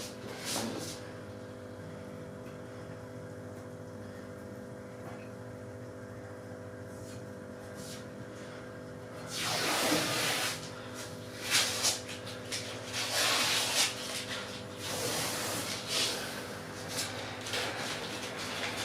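Masking tape being peeled off aquarium glass in several pulls of a second or so each in the second half, over a steady low hum.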